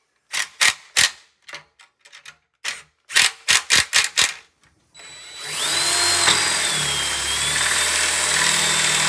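A string of short clicks and knocks, then, about halfway in, a cordless drill starts and runs steadily, boring a new bolt hole through an aluminum attic-ladder rail, with a thin wavering high whine from the bit in the metal.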